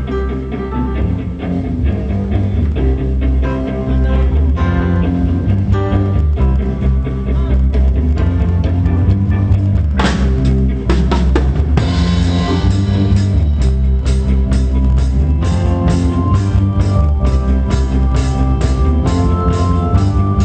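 Live band playing a song's instrumental intro: bass and guitar chords, with the drum kit coming in about halfway with a steady beat and cymbals.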